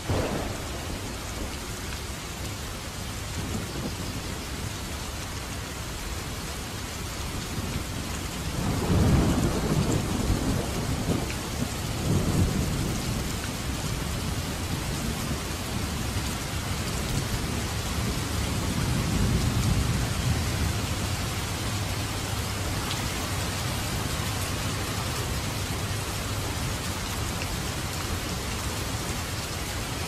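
Steady rain falling and pattering on a wet surface, with three low rolls of thunder, the loudest about nine seconds in and weaker ones around twelve and nineteen seconds.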